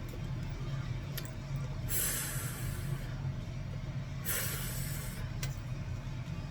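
A woman voicing the English phonics sound of the letter F twice, as two long breathy 'fff' hisses about two seconds apart, over a steady low background rumble.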